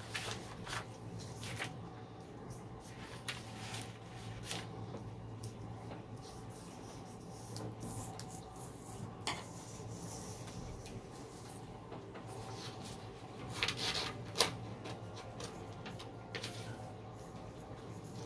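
Scissors snipping through paper and paper rustling as a sheet is cut by hand, in scattered snips with pauses and a quick run of them about two-thirds of the way through, over a faint steady hum.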